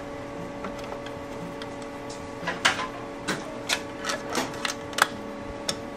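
Irregular sharp metallic clicks and taps, about ten of them over three seconds starting a couple of seconds in, from hands fitting the muffler back onto a Honda EU2000i generator and threading its mounting bolts. A steady low hum runs underneath.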